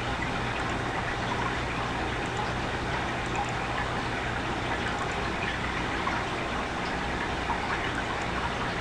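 Steady background hiss with a faint low electrical hum: the noise floor of the microphone and room during the screen recording.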